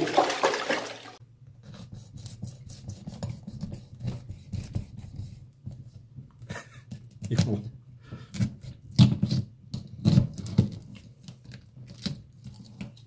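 Water splashing in a cooler holding the bled red sea bream, cut off about a second in. Then a kitchen knife cutting into a red sea bream behind the head: a run of small crisp clicks and scrapes as the blade works through scales and flesh against the cutting board.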